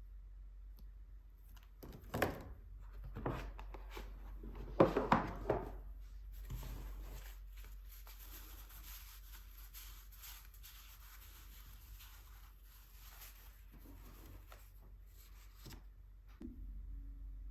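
Art supplies being handled on a desk: a few knocks and rustles, then several seconds of soft, scratchy rubbing, as of a brush or hand moving across paper.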